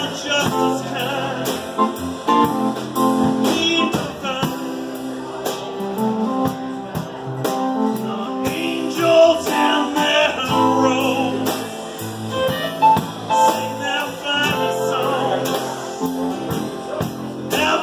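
A small live band playing a slow country-style song: acoustic guitar, keyboard and drums, with singing.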